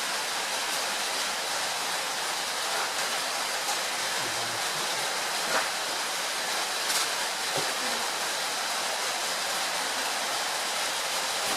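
Steady rushing hiss, with a few faint light clicks around the middle.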